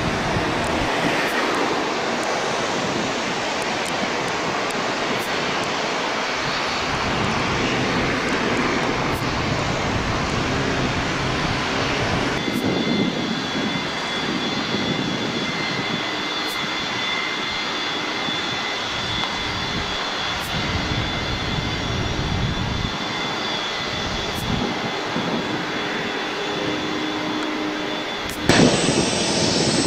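ATR 42 turboprop airliner running along the runway, a steady rushing engine noise. About twelve seconds in, a Boeing 737-200 takes over, its JT8D jet engines running with a steady high whine. Near the end the sound jumps abruptly to louder jet noise.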